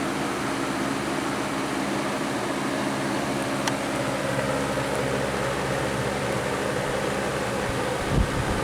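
Lakewood 20-inch plastic box fan, model 200, running steadily on its medium speed: an even rush of air over a steady motor hum.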